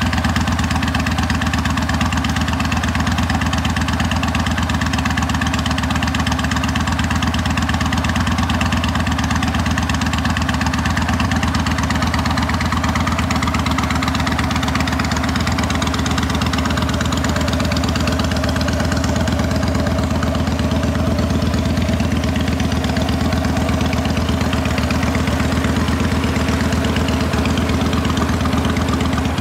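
2016 Yamaha Stryker 1300's V-twin engine idling steadily through a Freedom Performance Sharp Curve Radius aftermarket exhaust.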